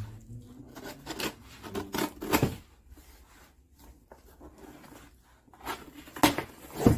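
Cardboard shipping box being handled and opened on a tabletop: cardboard rubbing and scraping, with several sharp taps and knocks, the loudest near the end.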